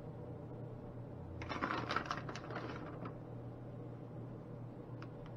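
Plastic bag of shredded cheese crinkling and rustling as a hand reaches into it, for about a second and a half starting about a second and a half in, over a steady low hum.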